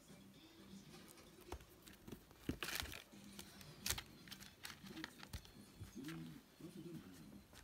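Newspaper crinkling and rustling under a kitten's paws and claws as she scrabbles about in a plastic pet carrier. It comes in short, irregular scuffles, the loudest a few seconds in.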